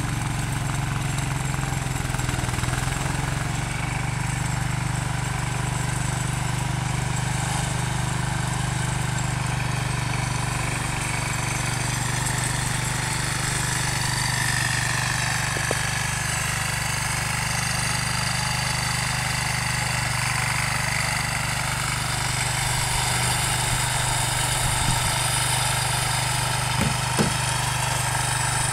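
Lawn tractor engine running steadily while it drives a front-mounted snowblower, a constant low hum heard from a distance. Two brief clicks near the end.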